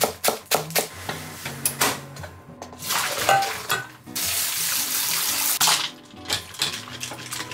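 Kitchen knife shredding lettuce on a wooden cutting board, quick regular chopping strokes, for the first two seconds. Then a loud rush of pouring and running water as boiled somen noodles are drained into a mesh strainer and rinsed over ice water. Background music runs underneath.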